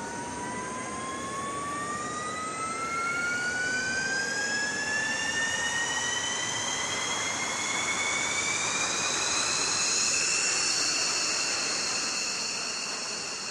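F-16 fighter's jet engine running as it taxis: a whine that rises steadily in pitch as the engine spools up and levels off near the end, over a rushing roar.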